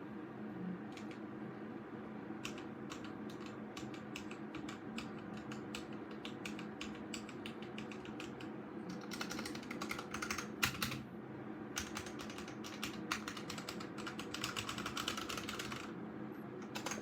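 Typing on a VOOKA Trol mechanical keyboard with red (linear) switches. Single key presses come at first, then two fast runs of keystrokes near the middle and toward the end.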